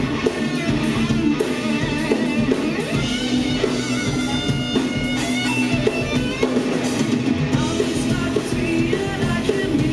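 Rock band playing live at a steady volume: electric guitars and bass over a drum kit keeping a regular beat.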